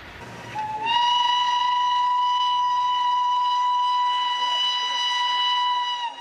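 A train whistle: one long, steady blast that slides up into pitch about half a second in, holds, then sags and cuts off near the end. Faint train running noise is under the first moments.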